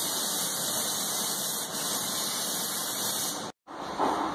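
Compressed-air spray gun spraying the underside of a car body: a steady hiss that cuts off abruptly about three and a half seconds in.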